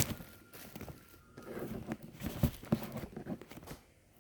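Plastic packet wrapper being handled, crinkling and rustling in irregular bursts with a few sharp clicks, dying away near the end.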